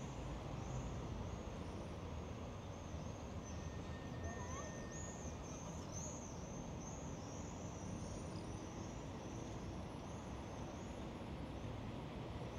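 Street ambience: a steady low rumble of traffic, with a small high chirp or squeak repeating about twice a second through most of the stretch.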